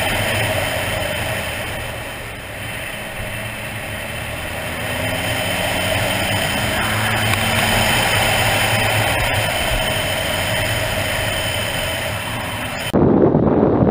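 Motorcycle engine running under way, with wind and road noise. It eases off about two seconds in and then climbs in pitch as it picks up speed again. About a second before the end the sound cuts abruptly to heavy wind buffeting on the microphone.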